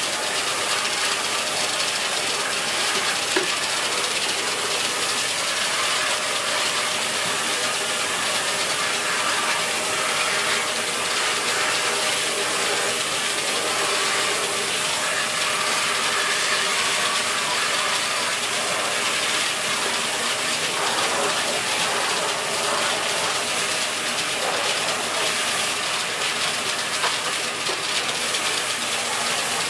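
Dyson Big Ball Animal cylinder vacuum cleaner running steadily, its motor and suction air making a constant hiss.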